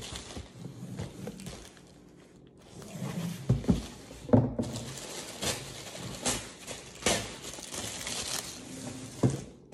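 Tissue paper being crinkled and torn open by hand, quieter for a moment about two seconds in and then busier, with a few sharp knocks along the way.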